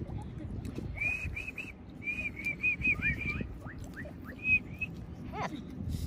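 Guinea pigs wheeking: runs of short, high squeaks, some rising, the begging call of guinea pigs being offered pear slices.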